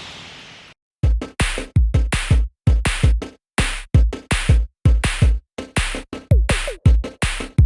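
Background electronic music with a drum-machine beat. A fading tail stops under a second in, and after a short break a steady rhythm of sharp hits with deep bass starts.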